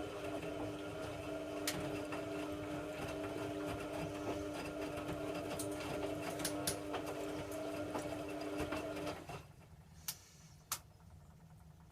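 Hoover Logic A3790 washing machine running with a steady motor whine that cuts off abruptly about nine seconds in, followed by a few faint clicks.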